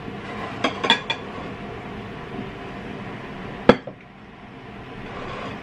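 Tableware being moved on a kitchen counter: a few light clinks about a second in, then one sharp knock a little past halfway as a water glass or bowl is set down.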